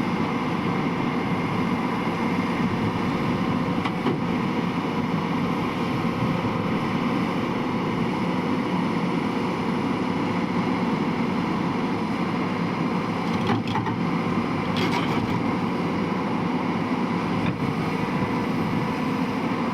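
Hyundai excavator's engine running steadily, with a few short knocks now and then.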